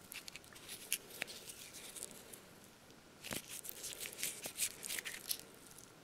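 Hands handling and turning small cardboard firecracker tubes close to the microphone: scattered light rustles, crinkles and clicks, in a cluster at the start and another from about three to five seconds in.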